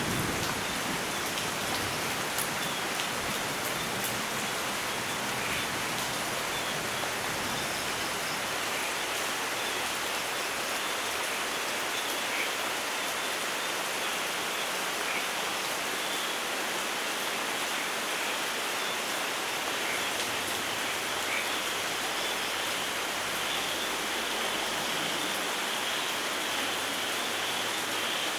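Steady heavy rainfall hissing evenly in a rainforest, with the last low rumble of thunder dying away at the start. A few faint chirps of frogs or insects come through the rain, and a high insect-like drone grows near the end.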